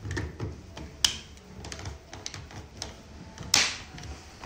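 Plastic clicks and knocks of a cryolipolysis working-handle connector being pushed into and handled at the machine's socket. There is a sharp click about a second in and a louder one near the end, the kind of click that tells the plug has latched.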